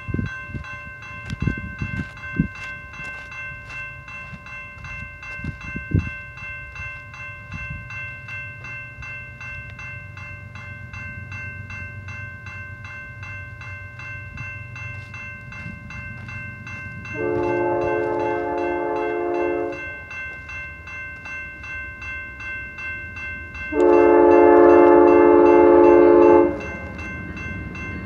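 A grade-crossing bell rings steadily in even strokes. The approaching BNSF train's lead locomotive, an ES44DC, sounds its multi-chime horn in two long blasts: one about two and a half seconds long, about seventeen seconds in, and a longer, louder one near the end. These are the long blasts that open the crossing warning.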